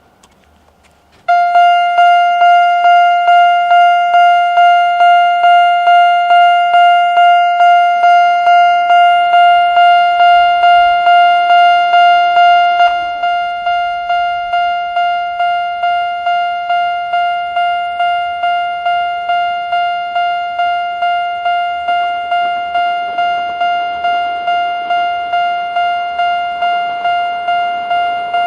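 Japanese level-crossing warning bell of the single-tone electronic type, starting about a second in and ringing at about two strikes a second to warn of an approaching train. About halfway through it steps down in volume, and the noise of the approaching train builds near the end.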